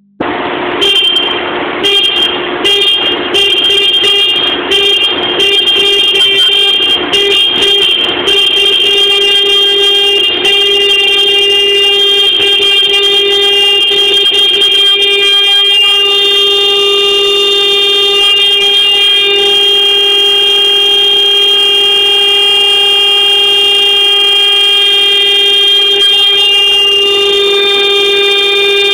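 Forklift horn sounding loud: one buzzing tone, honked in short repeated blasts for about the first eight seconds, then held on without a break.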